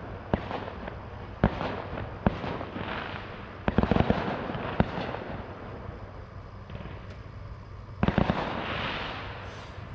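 Fireworks going off: scattered sharp bangs, a quick cluster of bangs about four seconds in, then a rush of crackling hiss about eight seconds in.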